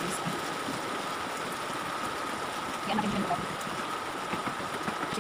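A steady rushing hiss with a faint, even high whine running through it. Brief faint voice-like sounds come about three seconds in.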